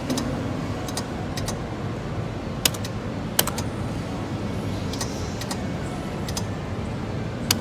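Ten Times Pay reel slot machine being played: a scatter of sharp clicks, irregularly a second or so apart, from the spin button and the stopping reels. Under them runs a steady hum of casino background noise.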